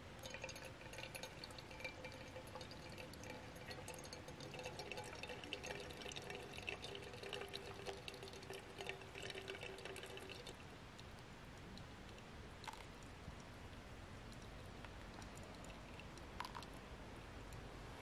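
A thin stream of water poured from a gooseneck kettle onto coffee grounds in a paper drip-bag filter, a steady trickle that stops about ten seconds in. Two faint ticks follow later.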